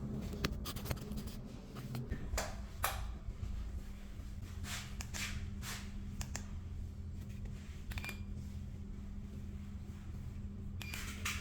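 Ceiling fan motor running with a steady low hum, with scattered light clicks and rustles.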